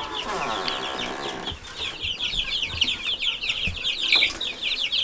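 A brood of young chicks, part feathered, peeping in a brooder: a dense chorus of short, high, falling chirps. For the first second and a half a lower drawn-out sound runs under the chirps.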